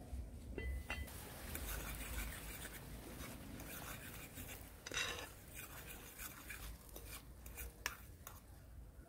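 Metal cooking pot being handled: the lid is lifted off and a utensil clinks against the pot while the curry gravy is stirred, with a few sharp clinks, the loudest about five seconds in and another near eight seconds.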